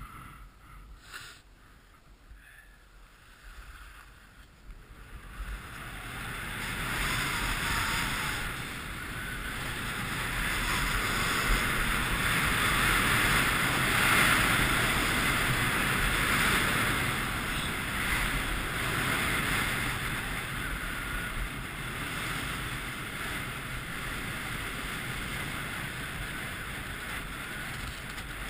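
Wind rushing over the camera and skis hissing and scraping on packed snow on a fast downhill run. It is low for the first few seconds, builds up about five seconds in and is loudest midway.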